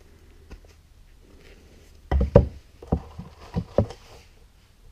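Wooden workpieces knocking against wood as they are handled and set down: a quick cluster of loud knocks about two seconds in, then three more single knocks over the next two seconds.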